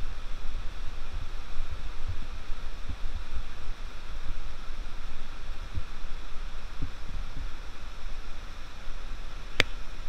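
Steady hiss with uneven low rumbling buffets, typical of wind on the microphone. There is one sharp click near the end.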